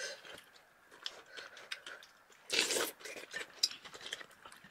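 Close-miked eating: a person chewing and eating hot rice soup, with small clicks throughout and one louder, noisy mouth sound about two and a half seconds in.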